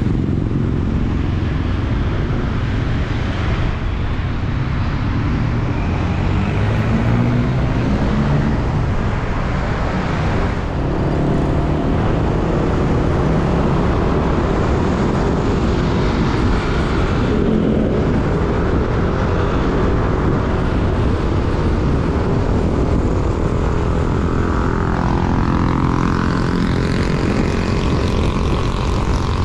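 Motorcycle taxi's engine running as it rides along a city road, heard from on the bike, with wind rushing over the microphone. The engine note climbs several seconds in as the bike speeds up.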